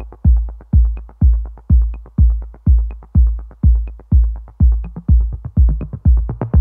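Electronic dance music: a heavy kick drum on a steady beat, about two a second, with light ticks between the kicks.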